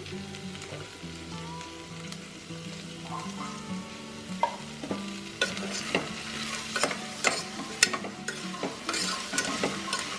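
Vegetables and field beans sizzling in oil in an aluminium pressure cooker while being stirred. From about five seconds in come many quick clicks and scrapes against the metal pot.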